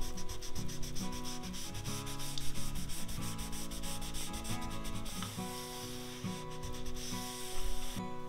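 A cloth rubbed in quick, repeated strokes over a paper strip covering the spine edge of a stack of paper sheets, pressing it down.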